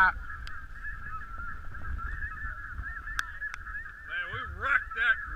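Snow geese calling: a continuous chatter of many geese, with a few louder, closer calls about four to five seconds in.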